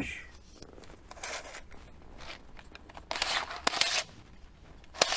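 Fish tape being pulled out of its reel in short scraping pulls with small clicks: one about a second in, a longer one from about three to four seconds in, and a brief one near the end.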